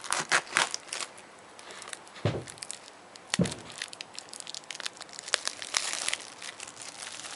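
Plastic wrapping being torn and crinkled off a Blu-ray box set in crackly bursts, with two dull thumps from outside, a couple of seconds and three and a half seconds in.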